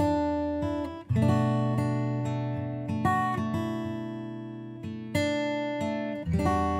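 Instrumental break in a song: acoustic guitar chords struck one at a time and left to ring and fade, five chords in slow succession.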